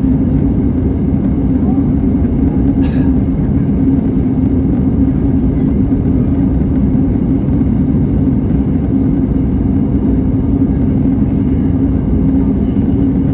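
Steady cabin noise inside an Airbus A320 in flight: a loud, even drone of engines and airflow with a constant low hum. A brief faint click sounds about three seconds in.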